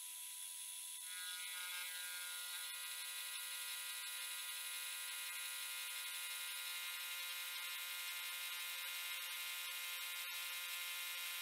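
Lathe-mill combo's spindle running a shed-made fly cutter through a facing pass on a mild steel block: a steady whine of several even tones, with a few higher tones joining about a second in.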